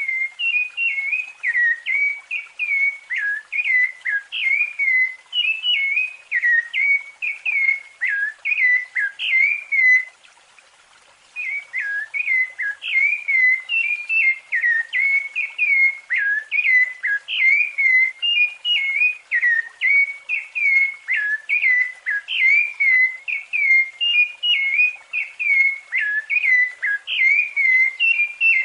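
Rufous-bellied thrush (sabiá-laranjeira) singing its fluted song: a steady stream of short, clear whistled notes sliding up and down, with a pause of about a second a little over a third of the way through.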